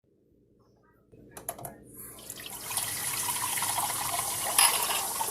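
Water tap turned on: a few clicks, then water starts running from the faucet, swelling over about a second into a steady stream, with a brief louder splash near the end.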